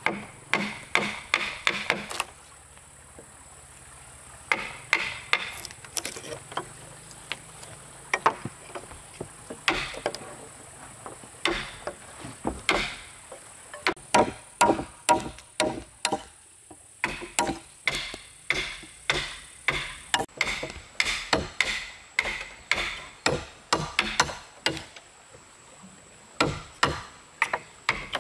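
Sharp blows of a hand tool on timber, struck in runs of several strikes with short pauses, then almost without a break about two to three a second from halfway on.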